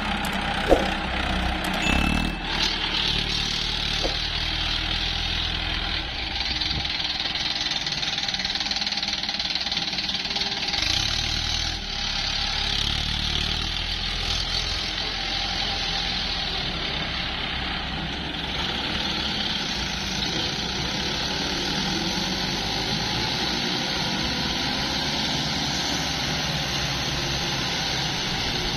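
Diesel engines of Mahindra farm tractors and a CAT 320D3 excavator running steadily at a soil-loading site, with a short sharp knock about a second in.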